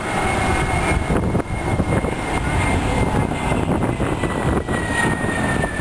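Jet airliner's engines running as it climbs away low overhead: a steady rush of engine noise with a high whine that slowly falls in pitch, dropping further near the end as the plane moves away.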